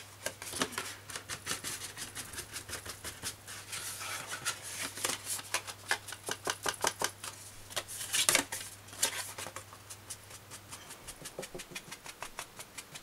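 Sponge dauber dabbing and rubbing ink onto the edges of a cardstock box, a quick run of soft taps and scrapes on the paper, with a louder cluster about eight seconds in.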